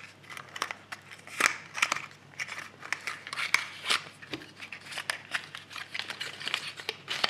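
Plastic blister pack and cardboard backing of a cream eyeshadow being pulled apart by hand, giving a run of irregular crinkles, clicks and snaps.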